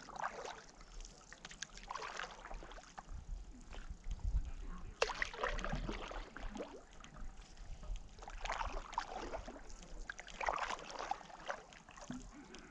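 Stand-up paddleboard paddle strokes: the blade dipping and pulling through calm lake water, a splashy stroke about every two to three seconds. A single sharp knock about five seconds in.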